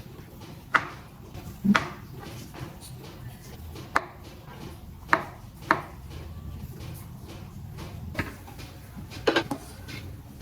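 About eight sharp knocks at irregular intervals, with a pair close together near the end.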